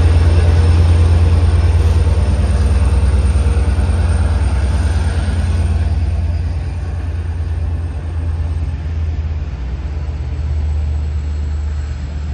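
LIRR DE30AC diesel-electric locomotive's engine running: a steady, loud, low rumble that slowly fades over the second half.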